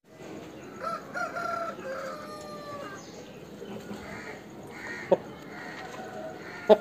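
A rooster crows once, a drawn-out call of about two seconds, followed by quieter clucking from chickens. Two sharp knocks stand out near the end.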